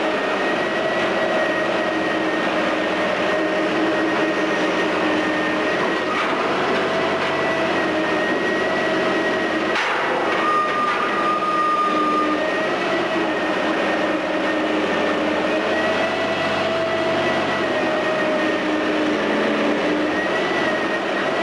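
Menck cable-operated crawler crane working a wrecking ball: its engine and winch gearing run steadily with a wavering whine, with a short crash of debris about ten seconds in.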